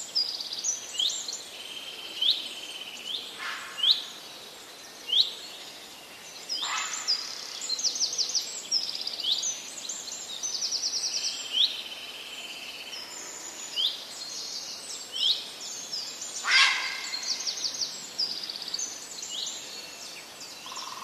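Songbirds chirping: many short, high whistled notes sweeping up or down, with rapid trills and a few louder, harsher calls.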